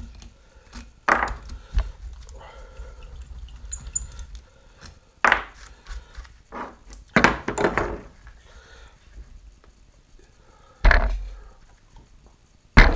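Irregular metal clanks and knocks, about half a dozen, as hand tools and a heavy 10-inch three-jaw scroll chuck are handled on a wood-bottomed tray. The loudest knocks come near the end, as the chuck is tipped up onto its edge.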